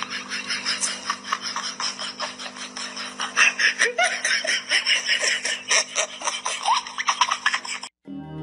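A person giggling in quick breathy pulses, several a second, over a steady low hum. It cuts off suddenly near the end, and piano music begins.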